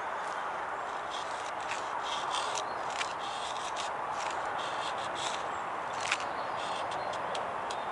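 Stick being drawn along a fixed knife blade, shaving curls off the wood to make a feather stick: a series of short scraping strokes, about one or two a second, over a steady background hiss.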